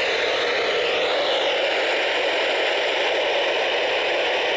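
Steady radio static hiss from a broadcast receiver, with no voice audible in the noise.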